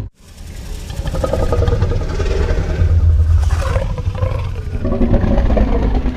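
Indominus rex dinosaur sound effect: a long, low rumbling growl that swells up over the first second and then holds on.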